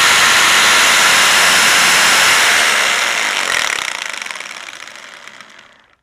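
Electric drill running at full speed with a high whine, then released about two and a half seconds in: the motor spins down and fades to a stop over about three seconds.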